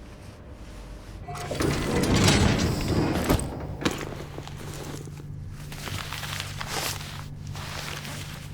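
A heavy crash with falling debris about a second in, as a school bus smashes through a wall. The bus's diesel engine then idles steadily, with a few sharp knocks and clatter over it.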